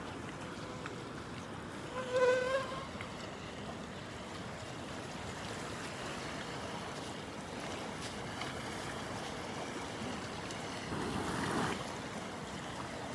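Gentle ocean surf washing on the beach as a steady hiss, with a louder rush of surf near the end. A short pitched call cuts in about two seconds in.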